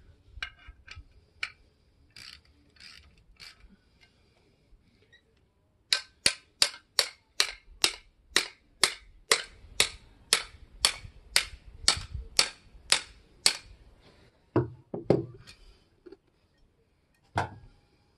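Ratchet wrench clicking at an even rhythm, about three sharp clicks a second for some seven seconds, as it works the nut on a muffler's exhaust clamp. A few fainter clicks come before it, and a few duller knocks of metal parts being handled come near the end.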